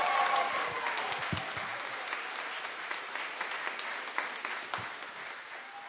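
Audience applauding, the clapping fading out steadily.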